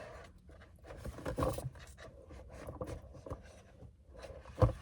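Tarot cards being handled and shifted on a table: soft rustling and scraping with small taps, and a sharp knock near the end as something is set down.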